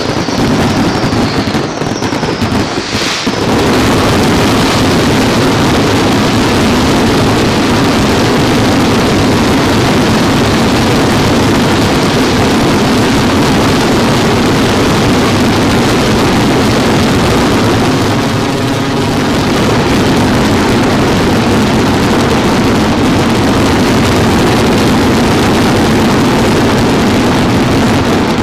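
Aerial fireworks display at full intensity: a dense, unbroken barrage of shell bursts that blends into one continuous loud rumble, after a brief lull about two to three seconds in.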